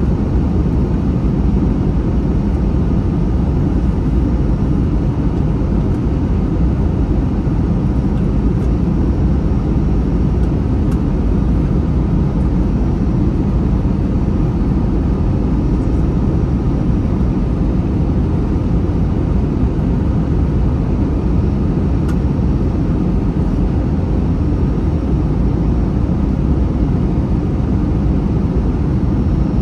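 Steady cabin noise inside an Airbus A321 airliner in flight: an even, deep rumble of engines and airflow with a faint low hum.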